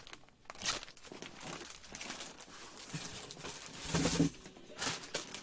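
Rustling and crinkling of a clear plastic bag around a jersey as it is handled and set aside, in several short bursts. A brief low hum-like sound is the loudest moment, about four seconds in.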